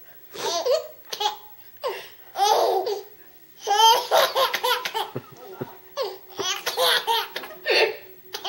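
A person laughing hard in about seven separate bouts, amused by someone's hiccups.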